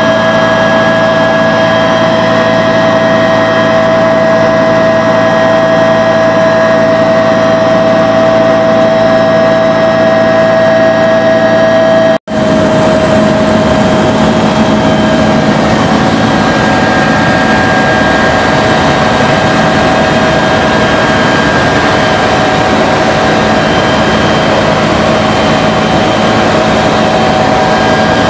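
Bell 212 helicopter's twin turbine engines and rotor heard from inside the cabin: a loud, steady drone with several held high tones. About twelve seconds in, the sound cuts out for an instant and comes back with a slightly different set of tones.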